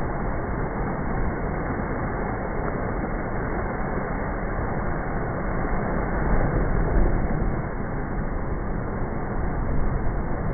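Heavy surf surging into a rocky coastal inlet, a steady rushing rumble that swells about six to seven seconds in and again near the end as a wave crashes against the rock and throws up spray.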